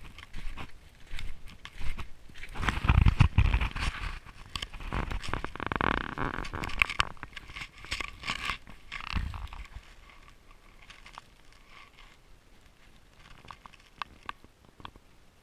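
Snowshoe footsteps crunching on packed snow, step after step, with a heavy low rumble about three seconds in. After about ten seconds the steps fade to scattered faint crunches.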